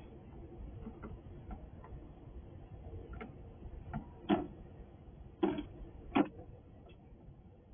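Small sharp clicks and taps of a squirrel's claws and teeth on a clear acrylic feeder box, with three louder clicks around the middle, over a low steady background hum.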